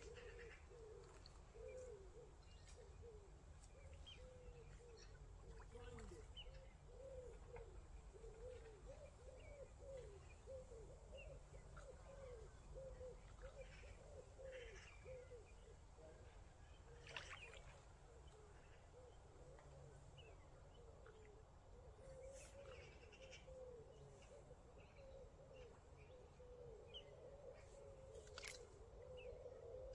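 Faint outdoor ambience: a continuous low wavering warble with scattered short bird chirps and a few light clicks.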